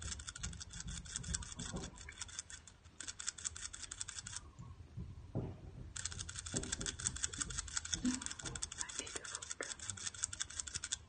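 Pet Dumbo rat drinking water: a fast, even run of licking clicks, several a second. The clicks stop about four and a half seconds in, then start again a second and a half later.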